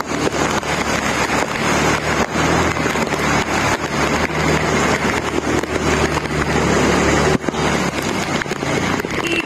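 Motorcycle engine running at low speed through floodwater in heavy rain, its steady low note under a constant hiss of rain and splashing water with many small spatters.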